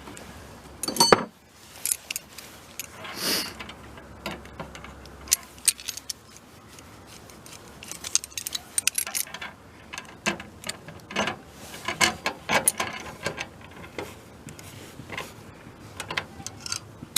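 Light metallic clicks, taps and rattles of hand tools and small lock parts being worked on a VW bus gas door lock, coming in irregular clusters, with one louder clack about a second in.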